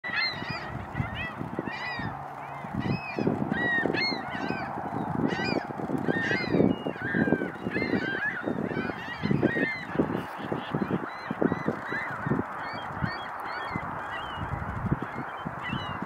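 Many short bird calls, repeated and overlapping, thinning out toward the end, over a steady wash of wind and choppy water with low gusts buffeting the microphone.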